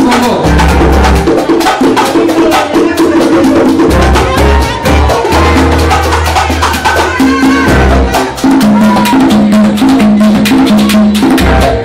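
Live Latin jazz from a charanga band: congas and timbales keep a busy rhythm over long held bass notes, with violins playing melodic lines.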